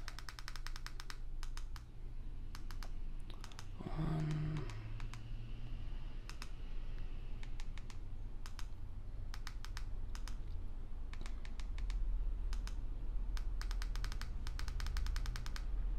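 Remote-control buttons clicking, pressed in quick runs and singly, over a steady low hum; a brief low hum-like sound about four seconds in.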